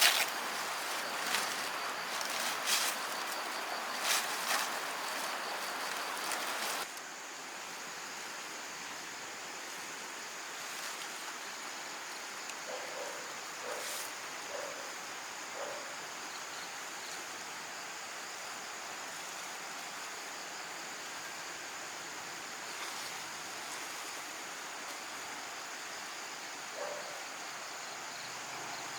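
Sharp knocks and rustling from handwork for about the first seven seconds. Then an abrupt cut to a steady outdoor background of insects droning high and even, with a few short, faint calls in the middle and near the end.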